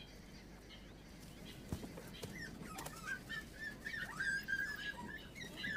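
Faint calls of African wild dogs: a run of short, wavering high-pitched calls starting a little over two seconds in, with a few higher chirps near the middle.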